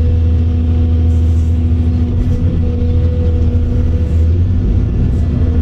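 Volvo EC700CL excavator's diesel engine running steadily, heard from inside the cab as the machine works: a loud, steady low drone with a constant hum over it.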